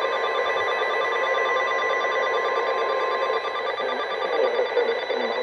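NOAA Weather Radio's 1050 Hz warning alert tone, one steady beep over radio static, cutting off about three and a half seconds in. The static hiss carries on after it, with a voice faintly starting under it near the end.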